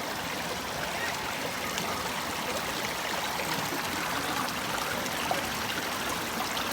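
Mountain valley stream flowing over rocks: a steady rushing and trickling of water.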